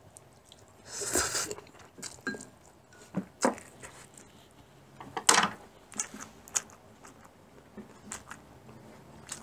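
Eating glass-noodle japchae: a long noisy slurp of noodles about a second in, then chewing and smacking with scattered sharp clicks of metal chopsticks against porcelain bowls and plates, the loudest about five seconds in.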